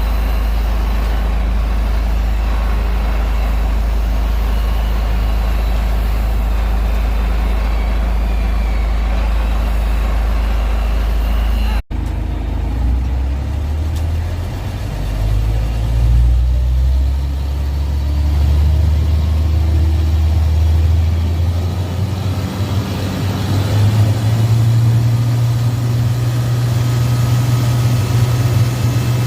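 Diesel engine of an Isuzu Giga FVZ concrete mixer truck running, with a steady low hum. It breaks off abruptly about twelve seconds in. After that the engine note shifts and climbs to a higher, steadier pitch near the end, as when the engine is revved or put under load.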